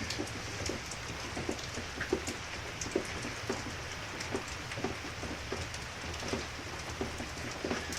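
Steady rain falling, with many scattered short ticks of drops landing close by.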